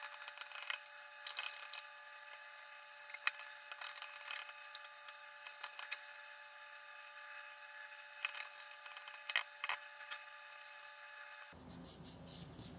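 Hands working the rubber front grip on a Nikon D4 camera body: scattered clicks and crackles, a few sharper snaps, over a faint steady hum.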